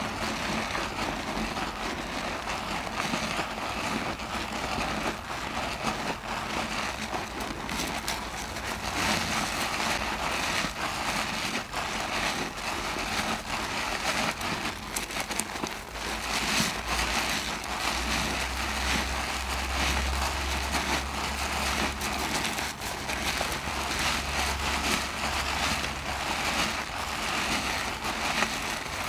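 A lathered mesh bath loofah squeezed and kneaded by hand in thick soap foam: steady wet squelching with a fine crackle of popping bubbles.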